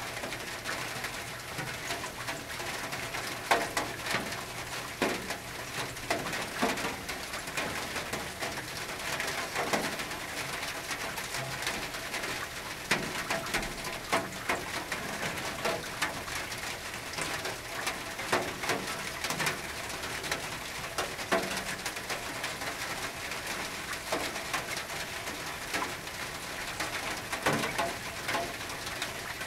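Rain falling on a tin roof: a steady patter, with many sharp individual drops and now and then a louder single drip striking the metal.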